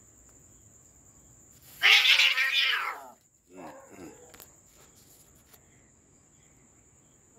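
Two domestic cats fighting: a loud, harsh screech about two seconds in, lasting about a second, then a shorter, quieter yowl.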